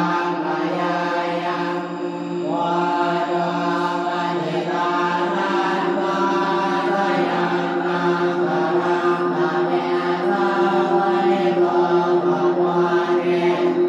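Background music of chanted vocals over a steady drone, with a regular pulsing that grows stronger in the second half.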